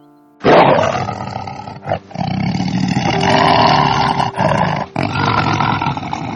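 Big cat roaring: a loud, rough roar starting about half a second in, broken by short pauses around two, four and five seconds in.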